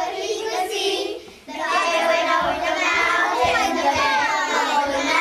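Group of young children singing together, their voices joining in loudly after a brief pause about a second and a half in.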